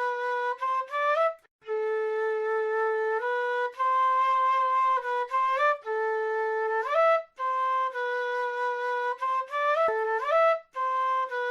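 South American flute playing a slow solo melody: long held notes broken by quick rising runs of notes that fall back to the low held pitch, with a few short pauses between phrases.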